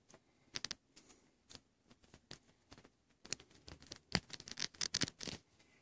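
Soft, scattered clicks and rustles of a servo lead and its plastic connector being handled as an extension lead is plugged onto it. The clicks come thicker in the second half.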